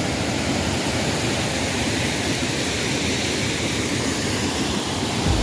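Steady rushing of a waterfall on a river, an even wash of water noise.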